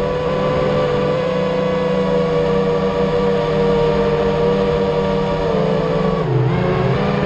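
The electric motors and propellers of a small FPV drone whine steadily at several close pitches, recorded on board. About six seconds in, the pitch drops sharply, then climbs back within about half a second.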